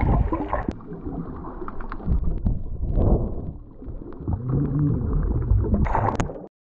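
Muffled underwater sound of swimmers: low rumbling and bubbling water with scattered small clicks, cutting off suddenly near the end.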